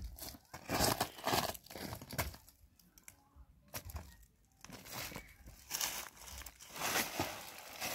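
Shoes scuffing and crunching on gravel and dry leaf litter: an irregular run of crackling steps and shuffles.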